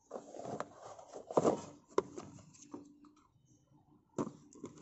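Cardboard box of flower-pot fireworks being opened and handled by hand: rustling and scraping of cardboard with a few sharp clicks, quieter for a moment near the middle.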